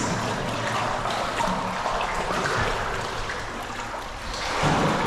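Water sloshing and trickling in a deep cave river pool, stirred by a person swimming through it.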